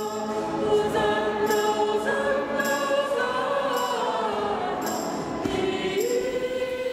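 Choir singing slow, sustained chords as opening music, with a soft high tick about once a second.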